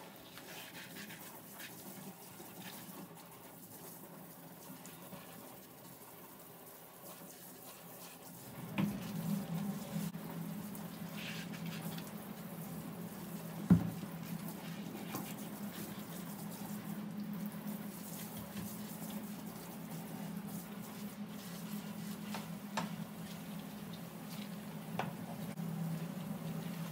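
Water from a pull-down kitchen tap running into a stainless steel sink while dishes are scrubbed. It gets louder from about nine seconds in, with one sharp knock about halfway through.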